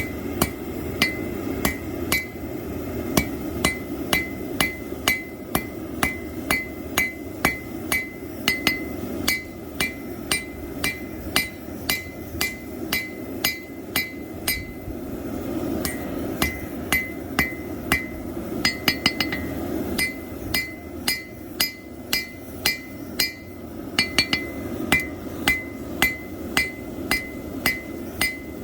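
Hand hammer striking hot plow-disc steel on an anvil, about two blows a second with a couple of short pauses, each blow ringing. The steel is being drawn out into the stem of a knife. A steady low rushing noise runs underneath.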